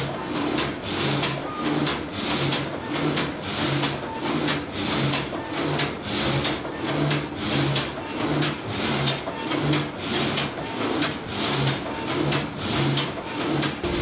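Wind-powered sawmill's reciprocating multi-blade frame saw working through a log, together with its feed gear, in a steady even beat of about three strokes every two seconds.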